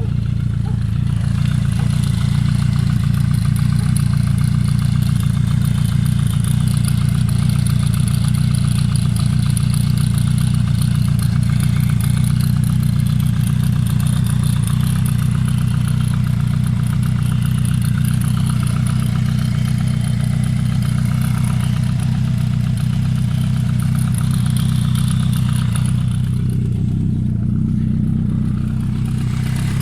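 Suzuki GSF Bandit 1200's inline-four engine idling cold, a steady low note with a fast mechanical clatter over it: the strange noise this engine makes when cold. The clatter drops away for a few seconds near the end, then returns.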